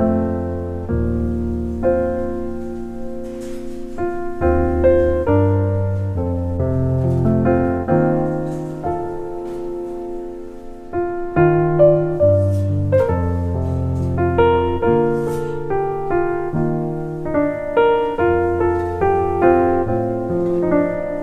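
Piano music: chords and melody notes played over held low bass notes.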